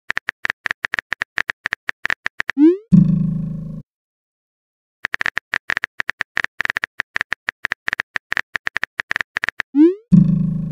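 Phone-keyboard typing sound effects, rapid clicks, in two runs. Each run ends in a quick rising swoosh and then a low buzzing tone about a second long as the message is sent.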